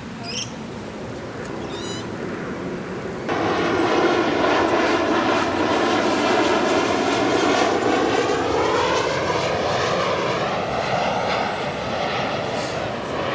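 A large vehicle passing close by: a loud rushing noise that comes in suddenly about three seconds in, its pitch pattern sweeping down and then back up as it goes past, easing off near the end.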